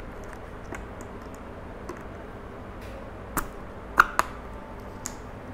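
Sharp plastic clicks and knocks of an action camera's clear housing and helmet mount being gripped and tugged on a motorcycle helmet, testing the stuck-on mount's hold. A handful of scattered clicks, the loudest two close together about four seconds in.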